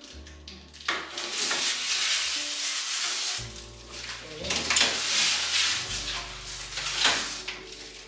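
Protective plastic film crinkling and rustling in two long stretches as it is peeled off a new refrigerator's shelves and drawers, over background music.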